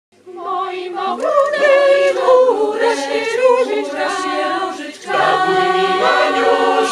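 Mixed choir singing a Polish folk song a cappella. The singing starts just after the beginning and breaks off briefly about five seconds in before the next phrase.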